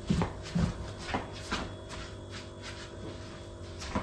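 Faint rustling and a few light knocks as frozen food and ice packs are handled and put into a freezer, over a steady low hum.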